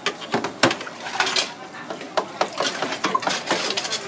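Ladles and spoons clinking and knocking against steel pots and bowls in a quick, irregular run of sharp clinks as cendol is dished up.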